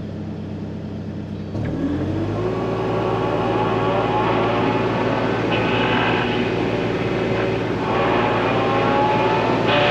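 Kubota KX40-4 mini excavator's diesel engine running. About a second and a half in, it revs up as the boom-mounted rotary mower is brought up to speed, and it then runs steadily louder, with a whine that rises and falls.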